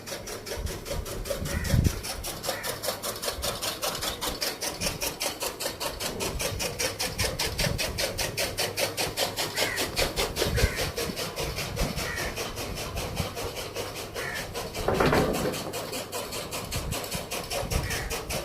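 An engine running with a fast, even beat, with a louder burst of noise about fifteen seconds in.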